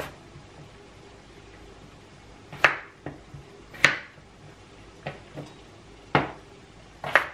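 A chef's knife cuts through raw potatoes and knocks down onto a plastic cutting board: about half a dozen separate, uneven chops, the sharpest a few seconds in and near the end.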